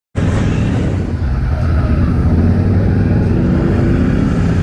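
ATV engine running at a steady pace while the machine drives; the sound cuts in abruptly just after the start.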